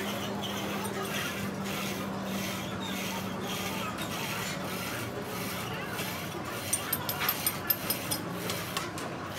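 Workshop noise: a steady low hum and a rhythmic scraping that pulses about twice a second, then a quick run of sharp metallic clicks about seven seconds in.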